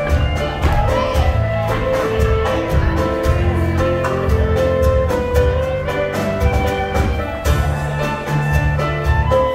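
Live contra dance band playing a tune, a melody line over a bass line with a steady beat.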